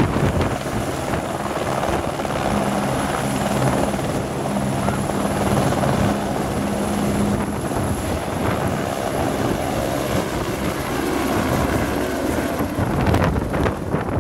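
Airbus (Eurocopter) AS350 Écureuil turbine helicopter lifting off and climbing away: a steady high turbine whine over the beat of the main rotor.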